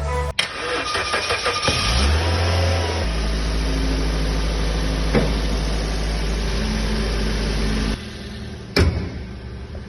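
Suzuki SX4 engine starting and settling into a steady idle after a cylinder head repair, with a sharp knock near the end.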